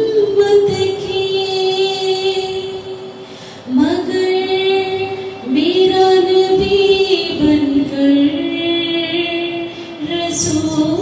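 A woman singing long, drawn-out held notes in several phrases, with short breaths between them.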